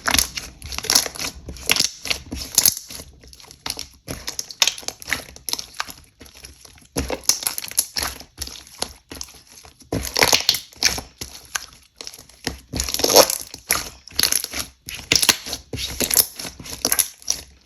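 Glue-based slime being squished and pressed by hand, giving irregular clusters of crackling clicks and pops, about one or two a second.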